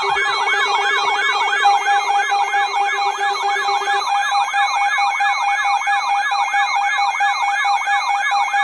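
Electronic emergency alert siren: a tone sweeping rapidly up and down, about three times a second, over steady held alarm tones. A lower pulsing tone underneath stops about four seconds in.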